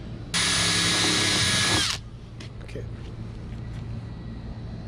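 Cordless drill with a 6.5 mm bit running once for about a second and a half, widening a mounting hole through the plastic kayak deck. Its pitch drops as it spins down and it stops.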